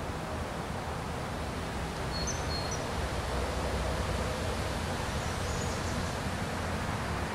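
Steady outdoor background noise, a low rumble under a soft hiss, with a few faint high chirps about two seconds in and again a little past the middle.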